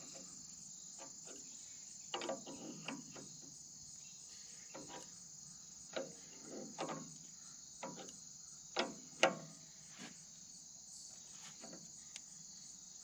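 Steel adjustable wrench clicking and clinking against brass hydraulic fittings on a diverter valve as they are tightened: a dozen or so sharp metallic knocks, loudest about two thirds of the way through. A steady high insect chorus goes on underneath.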